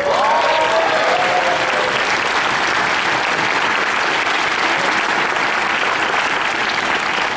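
Audience applauding steadily, with a few voices whooping in the first couple of seconds.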